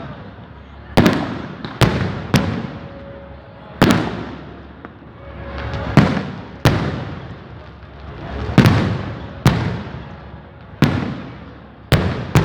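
Firecrackers going off in a string of loud sharp bangs, about a dozen at irregular intervals, several of them in quick pairs.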